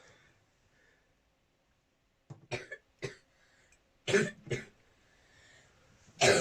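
A person coughing in the background, in three or four short bouts spread across the last four seconds.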